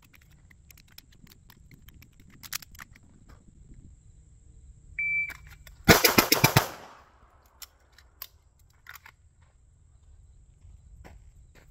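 Electronic shot timer beeps once, then just under a second later a CZ Shadow 2 pistol fires a rapid string of about seven shots in well under a second, each ringing out briefly. Before the beep there are only a few faint clicks of gear handling.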